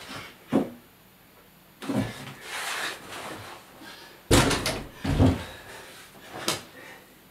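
A dancer's body knocking and sliding on a floor: about six sudden thumps with rustling swishes between them, the loudest two coming close together about halfway through.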